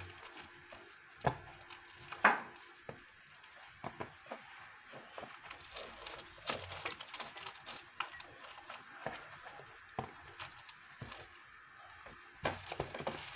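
Plastic cling film crinkling as it is pressed down over cups, with scattered light clicks and taps throughout. The sharpest taps come about one and two seconds in, and a cluster comes near the end.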